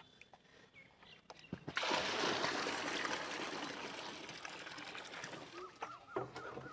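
A potful of water being poured into a filled tank, splashing in: it starts suddenly about a second and a half in and slowly tapers off as the pot empties.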